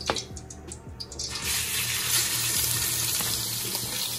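Ground turkey sizzling in hot coconut oil as it is scraped from a steel bowl into the pot: the sizzle starts suddenly about a second in and holds steady. Before it, a few clicks and scrapes of a wooden spoon against the steel bowl.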